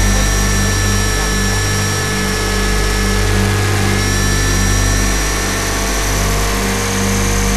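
Onboard sound of a 500-size radio-controlled UH-60 Black Hawk scale helicopter in flight: a steady high whine from the drive over the low, pulsing thrum of the rotor, holding an even pitch throughout.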